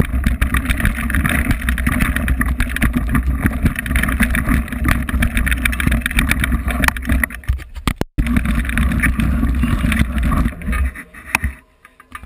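Wind rumbling on the camera microphone while a mountain bike moves over a rocky trail, with many small rattling clicks. The sound breaks off for an instant about eight seconds in and dies away near the end.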